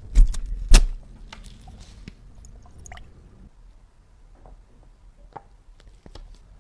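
Handling noises from restoration work on a small object: two sharp knocks within the first second, then scattered faint clicks and taps.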